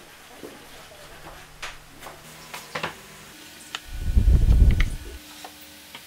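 A wooden board being handled on a wooden workbench, a low rumbling scrape of about a second near the middle, after a few light knocks.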